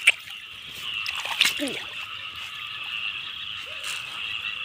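Frogs calling in a steady, high night chorus from the flooded grass. Two sharp clicks sound over it, one just at the start and one about a second and a half in.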